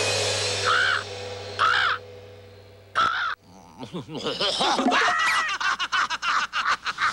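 Cartoon sound effects: a crow-like character's harsh caws, three short calls over a raspy hiss, then from about four seconds in a quick run of wavering animal-like cries.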